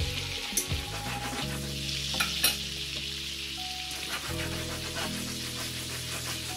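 Mahi mahi fillets frying in butter and sliced garlic in a skillet: a steady sizzle broken by a few sharp pops in the first half.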